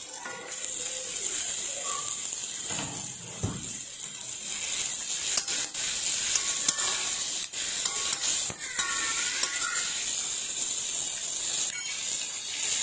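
Salted fish, sliced garlic and red chillies sizzling in hot oil in a wok, a steady hiss that picks up about half a second in. A metal spatula scrapes and clicks against the wok as the pieces are stirred, mostly in the middle stretch.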